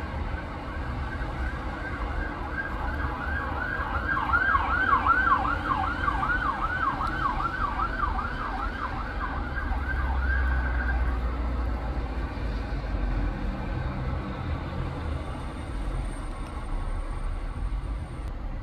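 Ambulance siren in fast yelp mode, a rapid rising-and-falling wail of about two or three sweeps a second. It comes in about two seconds in, is loudest a few seconds later and fades out about eleven seconds in, over a steady low rumble of road traffic.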